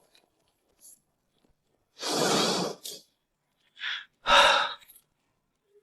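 Breathy exhales from a person: a long sigh about two seconds in, then shorter breaths near the four-second mark.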